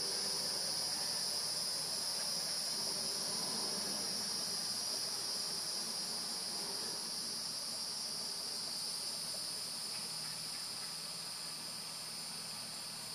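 Steady insect chorus, a continuous high-pitched drone that eases off slightly in loudness over the seconds.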